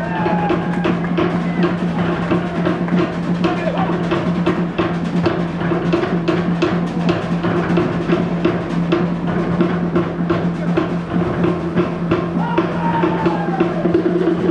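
Music with fast, dense drumming: rapid strikes over a steady low drone.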